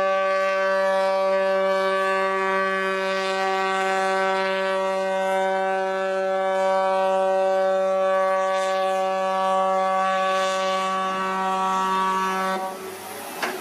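A long, loud horn blast held at one steady pitch for about thirteen seconds, cutting off near the end.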